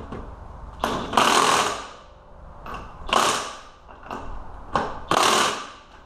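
DeWalt impact wrench hammering in several short bursts, each about a second long, as it runs the castle nut onto the quad's rear axle.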